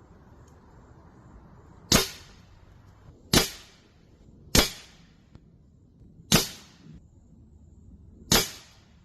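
.25 calibre AEA Challenger Pro air rifle firing five shots, one to two seconds apart, each a sharp crack.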